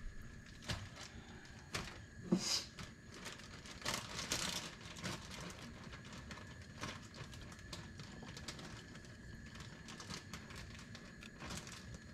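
Light, scattered taps and clicks as garlic slices and lemongrass stalks are dropped into a pot of water, over a faint steady high tone.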